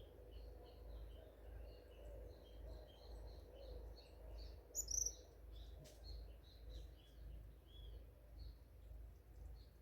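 Faint forest ambience of many small birds chirping continuously, with one louder, higher-pitched call about five seconds in, over a steady low rumble.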